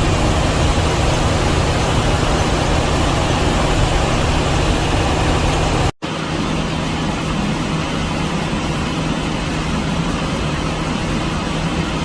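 Steady cockpit noise of a Boeing 737 MAX 8 in climbing flight: a loud, even rush of airflow and air-conditioning with a low hum underneath. It cuts out for an instant about six seconds in and is slightly quieter after.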